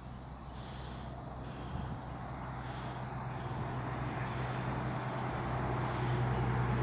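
Road traffic noise from a nearby highway: a steady rushing with a low hum, growing gradually louder.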